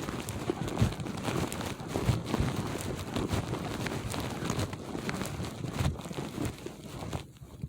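Footsteps crunching through snow at a walking pace, about two steps a second, over a steady rustle of wind and clothing.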